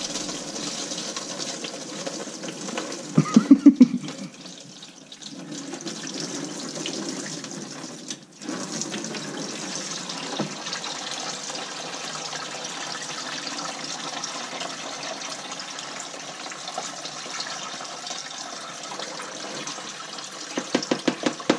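Engine coolant draining from the opened butterfly drain plug at the bottom of a Nissan 240SX's stock radiator, pouring in a steady splashing stream into a drain pan. A brief run of louder quick pulses comes about three seconds in and again near the end.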